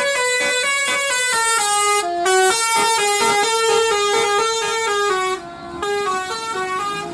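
A tour bus's telolet horn, a set of electric air horns, playing a quick tune of stepped notes. The tune dips briefly about five and a half seconds in.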